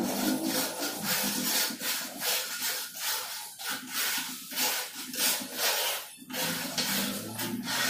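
Rhythmic scraping strokes, about three a second, of a hand tool worked back and forth over a hard surface, with a brief break a little after six seconds in.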